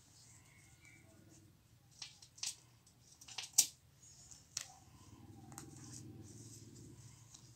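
Scissors snipping cloth: a handful of sharp, irregular snips, the loudest about three and a half seconds in.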